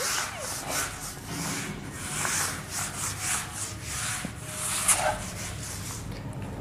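Eraser wiping a whiteboard clean in quick back-and-forth rubbing strokes, about three swishes a second, tailing off near the end.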